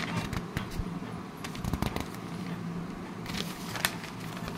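Paper rustling and crackling as the pages of a printed question booklet are turned and handled, with scattered small clicks and a denser rustle about three seconds in. A low steady hum runs underneath.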